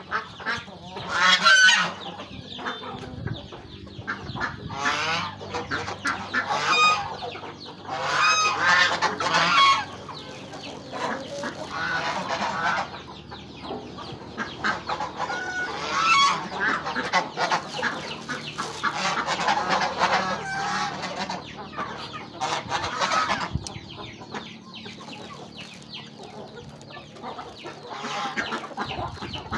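Domestic geese honking, a loud call every few seconds, over continuous clucking from a flock of chickens feeding alongside them.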